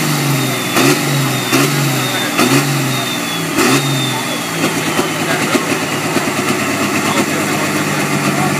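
Valtra pulling tractor's diesel engine being blipped in quick, short revs, about one a second, then settling to a steady idle about four and a half seconds in.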